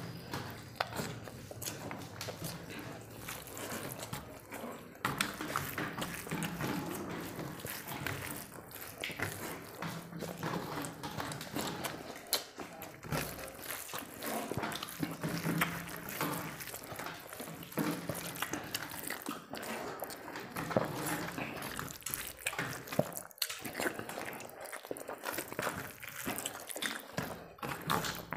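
Two people eating rice and chicken curry with their hands from steel plates: wet, squelching sounds of fingers mixing rice into gravy, with chewing and many small clicks.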